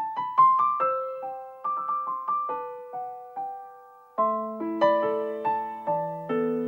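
Background piano music: a slow melody of single struck notes, then held chords from about four seconds in.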